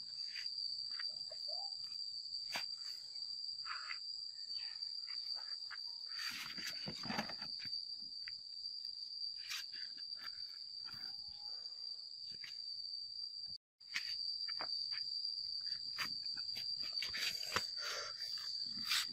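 A ripe jackfruit being torn open by hand: the rind splitting and the fibrous flesh ripping, heard as many short crackling tears with a louder rip about six seconds in and again near the end. A steady high-pitched whine runs underneath.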